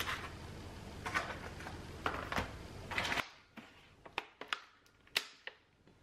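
Plastic strawberry clamshell set down on a stone countertop and handled: crackling plastic and taps over a steady background hiss, then, after the hiss drops out suddenly about three seconds in, a string of sharp separate clicks and knocks.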